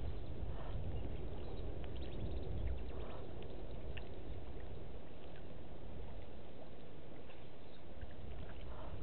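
An African elephant browsing in a bush: scattered faint crackles and snaps of twigs and leaves over a steady low rumble.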